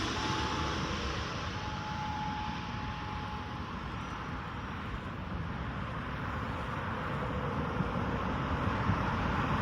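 Jet noise from the Airbus A330-200's Rolls-Royce Trent 700 engines: a steady rushing sound with a faint whine over the first few seconds, growing slightly louder toward the end.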